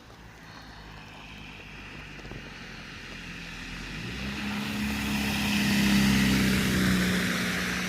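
A motor vehicle driving past on the road: a steady engine hum and tyre hiss that grow louder, peak about six seconds in, then start to fade as it moves away.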